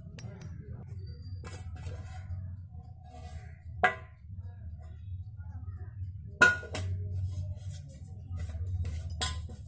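Metal cake tin clinking and knocking on the counter as it is handled and greased with oil by hand: three sharp clinks, the loudest about two-thirds of the way through, with lighter ticks between, over a steady low hum.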